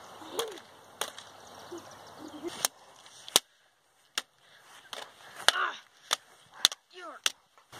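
Plastic toy lightsaber blades clacking together in a duel: a string of sharp, irregularly spaced knocks, about a dozen in all, with a brief lull in the middle.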